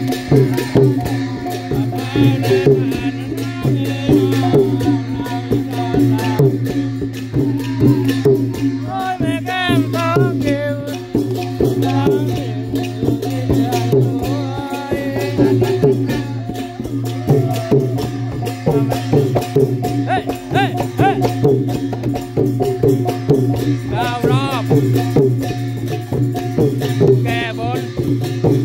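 Thai klong yao long-drum ensemble playing: hand-struck long drums and small clashing cymbals in a fast, dense rhythm over a steady droning tone.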